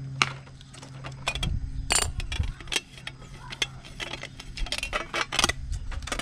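Irregular clicks, taps and clinks of hard plastic and small metal parts being handled while a motorcycle fender eliminator and tail-light bracket is assembled. A steady low hum runs underneath and stops about halfway through.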